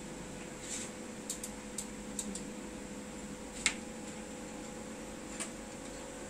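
Scattered light clicks and taps of hand tools against the motorcycle's frame and fittings, about half a dozen, the loudest a little before four seconds in. A steady faint hum runs underneath.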